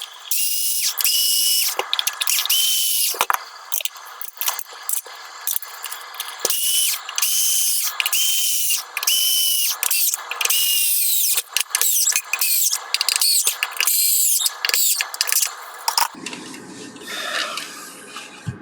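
Small electric power tool whirring in many short, stop-start bursts with a high whine. Near the end it stops and gives way to quieter handling clatter.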